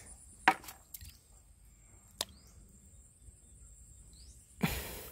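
Two sharp clicks, the first loud and about half a second in, the second fainter just after two seconds. Near the end comes a short splash as a hand stirs the shallow river water.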